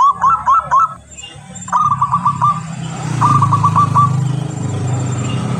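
Zebra dove (perkutut) cooing in rapid trilled phrases, three in all, with a low steady hum underneath that grows louder about halfway through.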